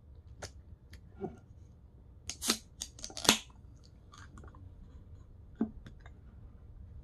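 Pull tab of a Sprite can being worked open: a few light clicks, then a cluster of louder sharp cracks with brief hissing, strongest around two and a half and three and a quarter seconds in.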